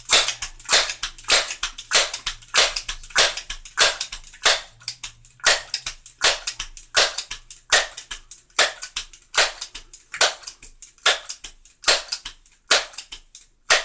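A Crosman 1322 .22 pump air pistol being charged by working its forearm pump lever over and over. It makes a steady run of short rushing strokes, about two a second, as the gun is pumped up to 20 pumps.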